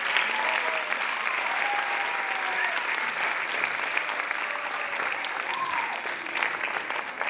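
Audience applauding steadily in a hall, with a few voices calling out over the clapping.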